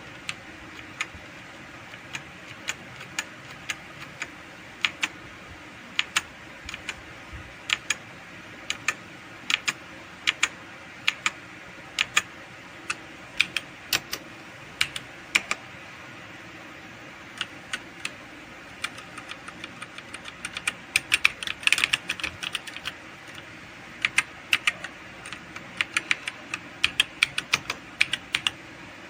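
MetaMinor META68 65% mechanical keyboard being typed on: separate key presses at first, then a quicker flurry of typing about twenty seconds in, over a steady faint hiss.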